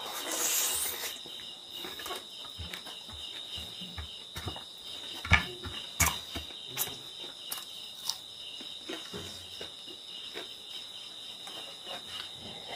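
Close-up eating sounds of pork and rice eaten by hand: a wet sucking slurp in the first second as fingers are licked, then scattered mouth clicks and lip smacks while chewing. A steady, high insect chirring runs behind it.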